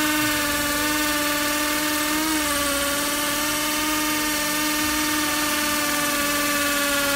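Bosch 36V cordless drill running continuously as it bores into a brick: a steady motor whine with a brief wobble in pitch about two seconds in.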